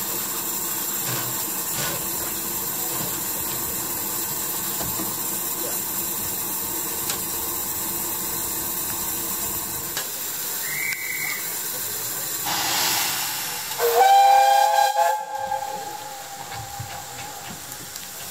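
Narrow-gauge steam locomotive standing with steam hissing steadily. About ten seconds in a short high whistle sounds, then a gush of escaping steam. About fourteen seconds in the engine's steam whistle gives one long blast of about four seconds, the loudest sound, sliding up slightly as it opens.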